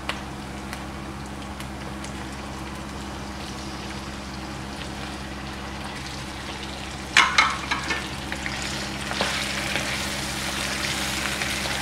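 Raw chicken pieces frying in hot oil with sliced onions in a wok, a steady sizzle that grows louder in the second half as the pieces are turned with a wooden spatula. A quick clatter of knocks against the pan about seven seconds in.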